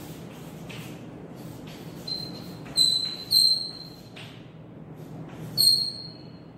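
Chalk writing on a green chalkboard: soft scratching strokes, and four short, high-pitched squeaks of the chalk in the middle and near the end.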